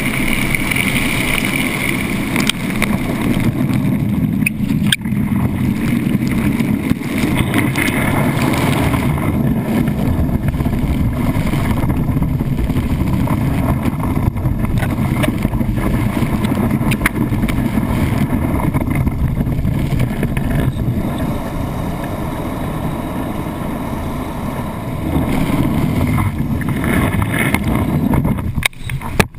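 Wakeboard planing over lake water, heard from a GoPro housing mounted on the board: a steady, mostly low rush of water and spray, with a few sharp ticks of spray hitting the housing and a brief dip near the end.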